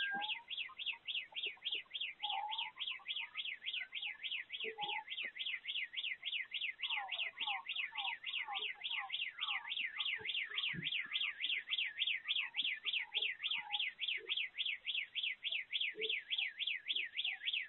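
Car alarm wailing in the distance: a high tone warbling up and down about four times a second without a break, with faint scattered chirps and an occasional pop underneath.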